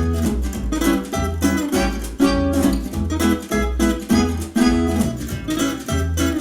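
Music with plucked guitar over a steady bass beat.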